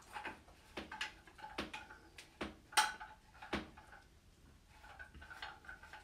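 Irregular sharp clicks and knocks of a handheld shower head being fitted onto the end of a flexible shower hose, about ten in the first four seconds, then a few softer ones near the end.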